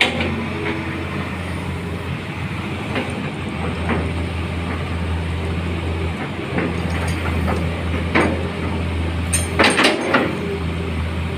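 Hitachi Zaxis 210F-5G excavator's diesel engine running steadily, with scattered metal clanks and a quick cluster of louder knocks about nine seconds in.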